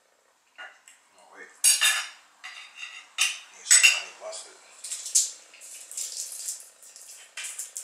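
Metal knife and fork clinking and scraping against a plate while cutting into a rotisserie chicken, with the sharpest clinks a little under two seconds in and around three to four seconds in. Softer handling sounds follow as a plastic squeeze bottle of honey mustard sauce is opened.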